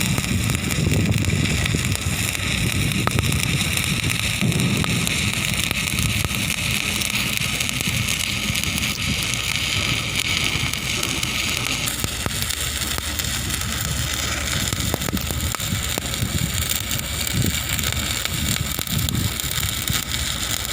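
Electric stick welding arc: a steady crackling hiss over a low rumble, the hiss thinning a little about halfway through.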